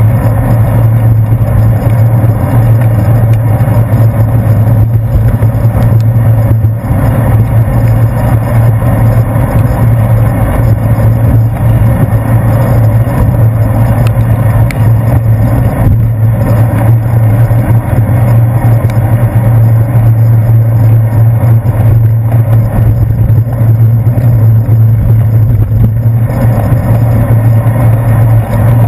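Steady, loud low rumble of wind and road vibration picked up by a handlebar-mounted GoPro Hero 2 in its waterproof case while a bicycle rolls over wet pavement.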